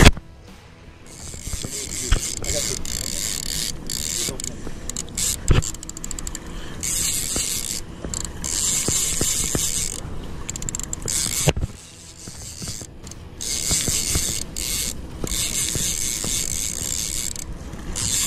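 Fishing reel ratcheting and buzzing in spurts with short pauses, while a hooked fish is fought.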